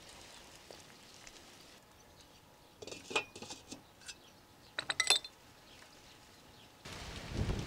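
Metal lid clinking against the cauldron as it is handled and set down: a few light clinks about three seconds in and a sharper, louder cluster about five seconds in. A steady hiss starts near the end.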